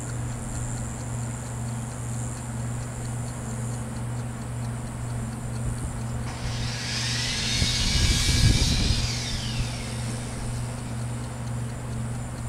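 A vehicle passes by, swelling to a rumble at its loudest about eight seconds in, then fading with a high whine that falls in pitch. A steady low hum runs underneath.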